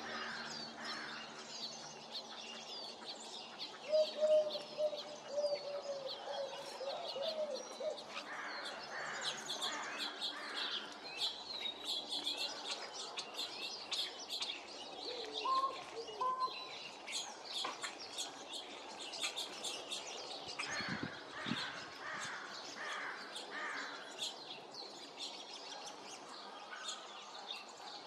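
American crow giving its low, cooing "coo-honk" call: one drawn-out wavering call about four seconds in, and short honk-like notes later, over many small birds chirping.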